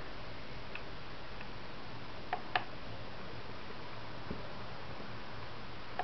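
Steady room tone with a low hum, broken by a few small sharp clicks: one early, two in quick succession about two and a half seconds in, and a faint one later.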